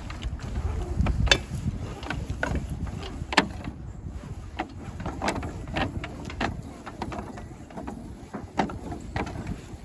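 Rope handling at a metal roof anchor: an 11 mm access rope is pulled through a permanent ridge anchor, with scattered sharp clicks and knocks of rope and hardware against metal and slate, the sharpest about a second in and again about three and a half seconds in. A low rumble of wind on the microphone runs under the first second or so.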